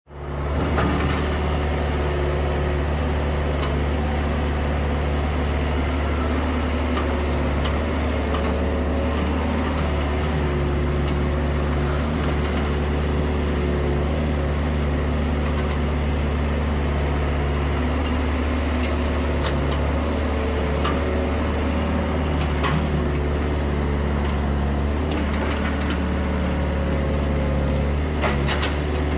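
Hydraulic excavator's diesel engine running steadily at a constant speed, with scattered short knocks that come more often near the end.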